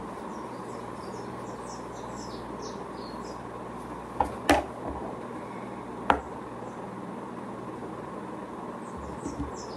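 Steady whir of a ceiling fan, with a few sharp clicks and knocks of objects being handled a little under halfway through and again at about six seconds. Faint high chirps come near the start and near the end.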